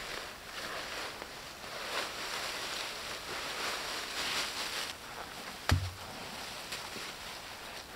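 Dry fallen leaves rustling and crackling as a sack of them is tipped out and shaken onto a leaf heap. One sharp thump about two thirds of the way through.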